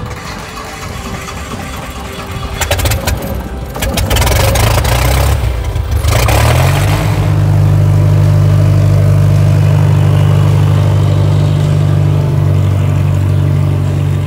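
Slick 360 aerobatic plane's piston engine and propeller, its engine on newly sorted electronic ignition. At first it is mixed with wind and handling noise; about six or seven seconds in the pitch rises slightly, and the engine then runs loud and steady as the plane taxis close by.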